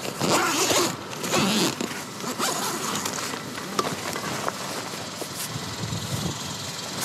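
A tent door zipper is pulled open in two quick rasps, followed by a car engine idling steadily with a few light scuffs.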